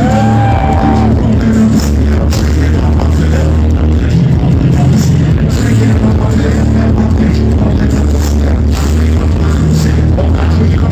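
Loud live rap music over a club PA, with a heavy, steady bass line.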